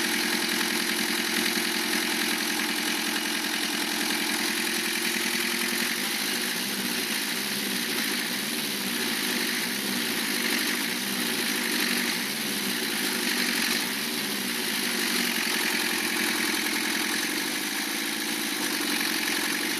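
Lancia Thema 2.5 TD turbodiesel engine idling with a knock from the cylinder-head area, which the owner finally puts down to a piston striking after the rebuild.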